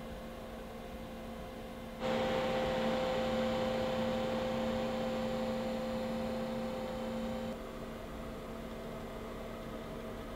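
Steady mechanical hum with a few fixed pitched tones. About two seconds in, a louder hiss with a higher tone switches on abruptly, then cuts off about five seconds later, leaving the hum.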